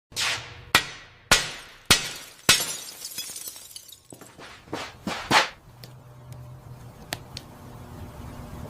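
A run of sharp knocks: five evenly spaced strikes, about one every 0.6 s, each with a brief ringing tail, followed by lighter, irregular clicks and taps.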